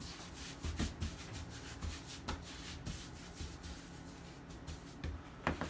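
A hand rubbing and spreading flour across a countertop: a series of soft, faint brushing strokes.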